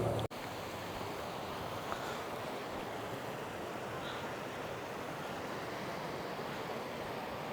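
Steady rush of flowing water, an even hiss and roar that starts abruptly just after a cut.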